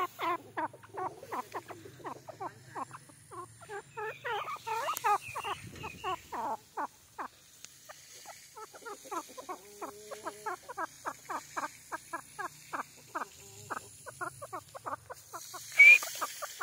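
A francolin (teetar) giving rapid soft clucking notes, several a second, with a sharp rising chirp near the end.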